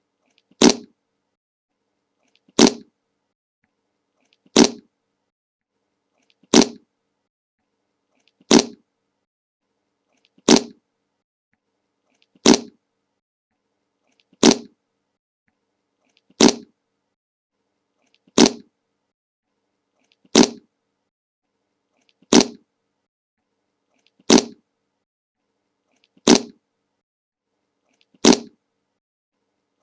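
The 'Le Monke' meme fart sound effect: one short fart, repeated about every two seconds with silence between.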